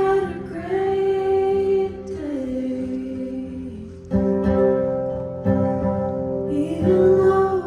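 Live acoustic song: strummed acoustic guitar with a voice singing long held notes. Fresh strums come in about four and five and a half seconds in.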